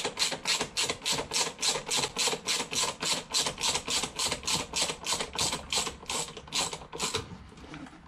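Ratchet wrench clicking in quick, even strokes, about four clicks a second, as the pad retaining pin is tightened into a motorcycle's rear brake caliper; the clicking stops about seven seconds in.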